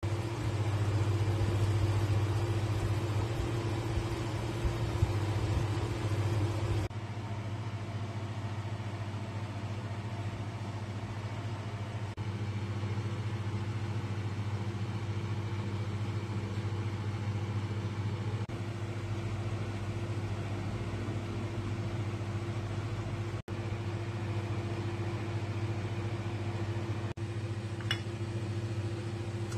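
A steady low mechanical hum with a constant pitch, dropping out briefly at a few edits, with a few faint clicks near the end.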